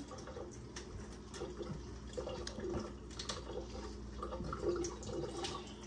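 Water running from a kitchen faucet into a sink while small onions are rinsed under it, with scattered light clicks and knocks as they are handled.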